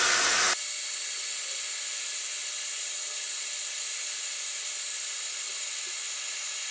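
Hair dryer blowing steadily. About half a second in, the sound drops in level and thins to an even hiss with no low rumble.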